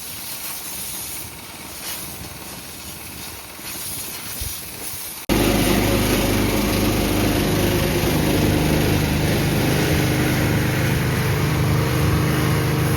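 Compressed air hissing from a nozzle as chaff is blown off a combine. After a cut about five seconds in, it turns much louder, with a small engine running steadily under the hiss.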